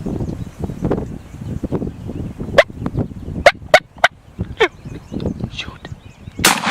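Eastern wild turkey gobbler gobbling close by, followed by several short, sharp calls. A loud gunshot near the end.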